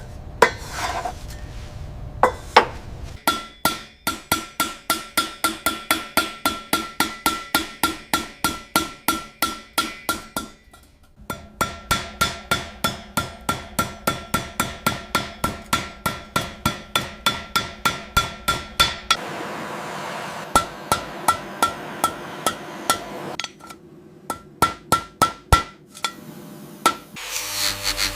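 A small hammer tapping on metal in a steady run of light strikes, about three a second, each with a short metallic ring. The tapping pauses briefly twice, and near the end gives way to a rubbing sound.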